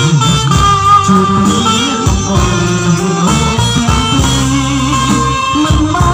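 Amplified live band music: a guitar playing an instrumental line over a moving bass line, loud and continuous.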